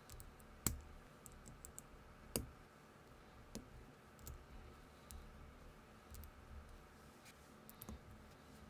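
Small plastic clone building bricks clicking and snapping together as they are pressed and handled. Two sharp snaps, a little under a second in and about two and a half seconds in, are the loudest, with fainter ticks scattered between.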